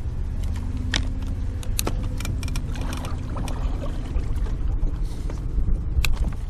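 Steady low rumble with scattered sharp clicks and short rattles of fishing tackle being handled in a boat.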